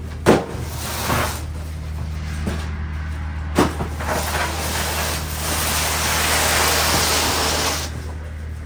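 Split firewood being unloaded: three sharp knocks of wood landing, the loudest just after the start, over a steady low drone that sounds like an idling vehicle. A rushing, sliding noise swells in the second half and stops shortly before the end.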